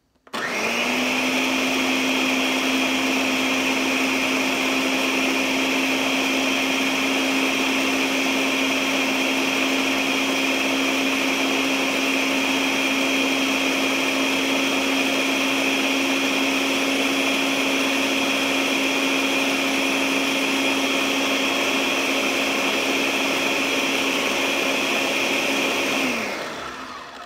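Electric blender motor starting up and running at a steady pitch, churning a thick strawberry-and-milk smoothie. About 26 seconds in it switches off, and the motor's tone falls as it spins down.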